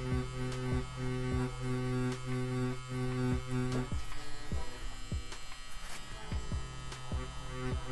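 CNC P6 rotary pen tattoo machine running at a 3.6 mm stroke with an 11-magnum needle, packing colour into practice skin: a steady electric hum that pulses about twice a second. The hum fades for a few seconds about halfway, then comes back.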